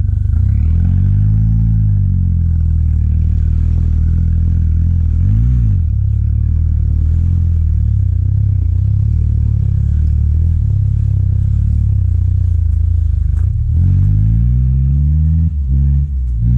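Off-road 4x4's engine pulling under load up a steep muddy climb, the revs swelling and dropping back several times: about a second in, around five seconds in, and again near the end.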